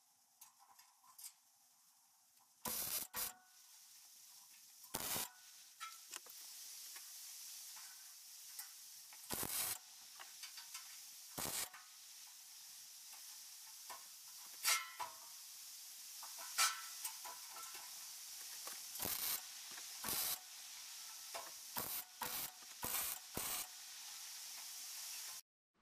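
Electric arc welding on steel hinge parts: the arc hisses steadily, with frequent sharp crackles and pops. It starts a few seconds in and cuts off abruptly just before the end.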